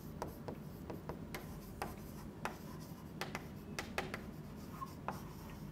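Chalk writing on a chalkboard: a word written out as faint, irregular taps and short scratches of the chalk, about a dozen in all.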